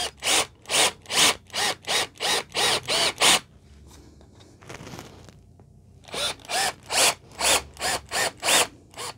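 Cordless drill run in short trigger pulses, each spinning up and winding down, about two or three a second, as the bit bores shallow recesses into a PVC strip so screw heads will sit flush. Two runs of pulses, one per hole, with a pause of about three seconds between them.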